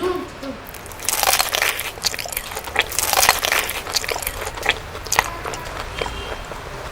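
Someone biting and chewing crispy food close up, a run of sharp crunches starting about a second in and thinning out after about five seconds.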